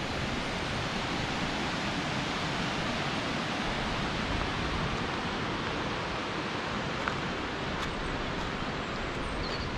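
River water rushing steadily below a dam, an even, unbroken rush of water noise.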